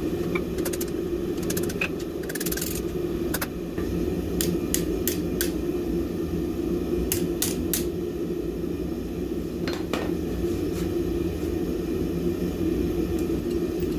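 Steady low drone of a running blacksmith's forge, with scattered light metallic clicks and clinks.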